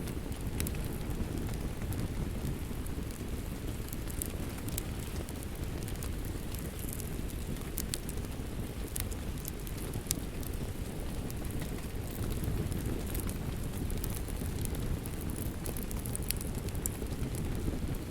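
Steady rainfall mixed with a crackling wood fire, with sharp pops scattered throughout.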